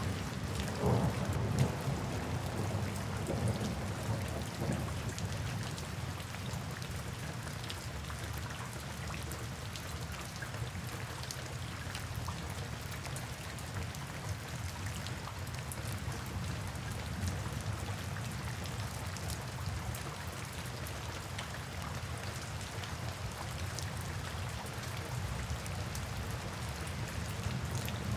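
Steady rain falling, with many separate drop hits heard through it. A low rumble of thunder dies away over the first few seconds.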